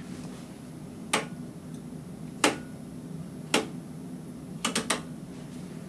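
Slit lamp's rotary power and light-intensity knob clicking as it is turned: three single clicks about a second apart, then three quick clicks in a row near the end, over a steady low hum.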